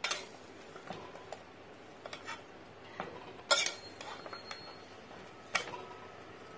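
Steel spoon scraping and clinking against the side of a metal pot as cooked rice is turned over, with a few sharp knocks. The loudest knocks come about three and a half and five and a half seconds in, each leaving a brief metallic ring.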